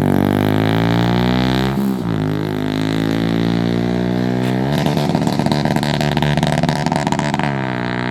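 Motorcycle with an aftermarket Akrapovič exhaust accelerating through the gears. The engine note climbs, drops at a gear change about two seconds in, climbs again rougher and louder from about five seconds in, and drops at another shift near the end.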